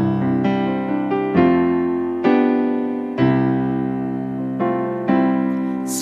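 Slow piano chords, struck about once a second and left to ring and fade, playing the introduction to a sung hymn.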